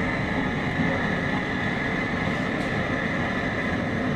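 Propane burner running steadily under a large stainless steel stockpot of water heating toward a boil for crawfish.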